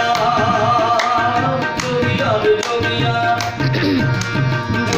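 Tabla and harmonium playing together in a Punjabi devotional song: quick tabla strokes over held harmonium notes.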